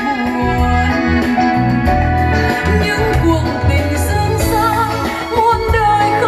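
A song playing from CD through the Kenwood 1001 mini hi-fi system's bookshelf speakers. A sung melody with vibrato runs over heavy bass.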